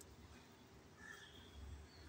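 Near silence, with only a faint low hum.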